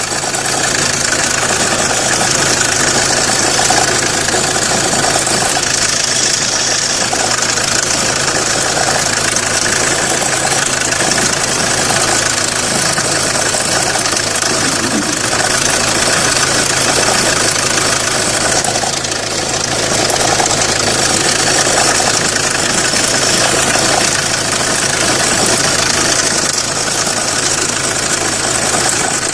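Renault Clio 1.5 dCi four-cylinder diesel engine idling steadily with a shaking rattle that comes only at idle, which the owner suspects comes from the tensioner.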